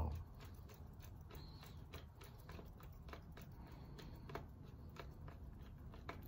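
Faint, irregular small clicks and scrapes of a wire being worked into a screw terminal on a contactor's auxiliary contact block, with a soft bump right at the start.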